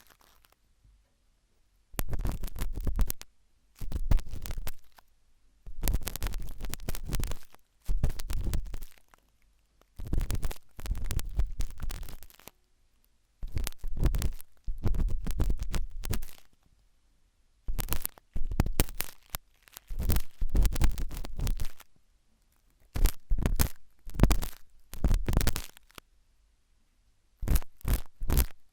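Sharp toothpick scratching and scraping inside an ear in crackly bursts of one to three seconds, with short silent pauses between strokes.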